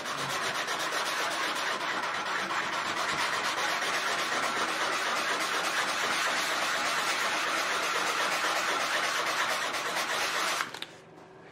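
220-grit sandpaper rubbed by hand in fast, short back-and-forth strokes over an aluminum wing skin, working out a scratch: a steady scrubbing that stops about a second before the end.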